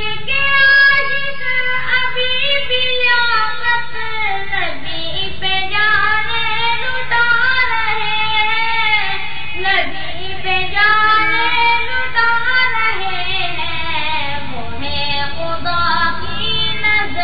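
A high voice, a child's or a woman's, singing a naat in long, held and gliding ornamented phrases, over a faint steady low hum.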